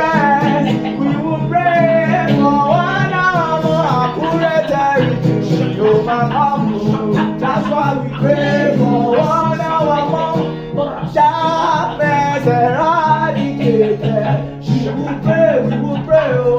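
Gospel worship music: guitar and held instrument chords under a voice singing or chanting without clear words.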